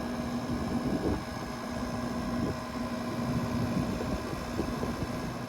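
Outdoor unit of a retrofitted camper-van air conditioner running, its fan blowing out hot air: a steady hum with a constant low tone.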